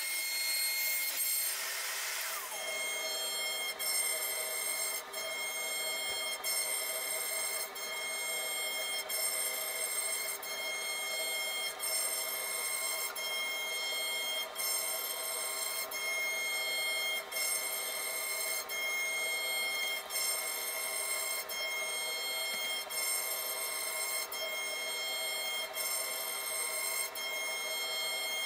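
CNC router carving a softwood board: a steady multi-tone whine from the spindle and the stepper motors as the bit cuts, breaking briefly at regular intervals of about once a second. A brief rush of noise is at the start, fading out about two seconds in.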